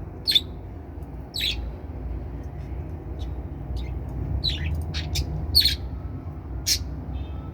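Budgerigars giving short, sharp chirps and squawks, about seven separate calls, over a steady low background rumble.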